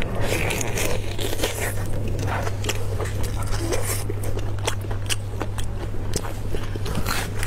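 Close-miked eating sounds of braised beef ribs: wet biting, meat torn from the bone and chewing, many quick smacks and clicks, over a steady low hum.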